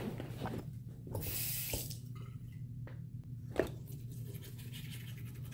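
Small objects handled at a counter: a few light clicks and taps, the sharpest about three and a half seconds in, and a brief hiss about a second in, over a steady low hum.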